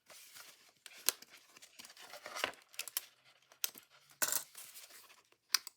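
Small hard craft items being handled and set down: a run of sharp clicks and clinks mixed with short bursts of paper rustling.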